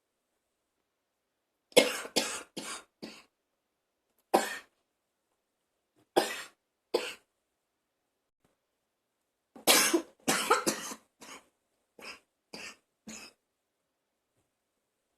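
A woman coughing harshly in fits: a run of four or five coughs about two seconds in, single coughs around four, six and seven seconds, then a longer, louder fit near ten seconds that trails off into a few smaller coughs.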